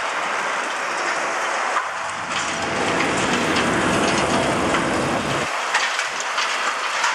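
Hydraulic crusher jaws on a long-reach demolition excavator crunching through a building's concrete roof edge, with rubble and debris falling in a steady patter of small clicks. A heavier low rumble of breaking material comes in about two and a half seconds in and stops suddenly about five and a half seconds in.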